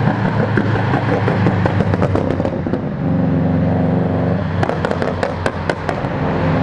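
Car engines running loud close by as cars drive past, the engine note changing about three seconds in, with two runs of sharp exhaust pops and crackles, about a second in and again past the halfway point.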